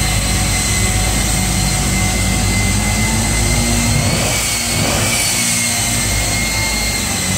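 Jet-powered semi truck's jet engine running at the starting line: a steady high whine over a deep rumble. The whine rises slightly in pitch about five seconds in.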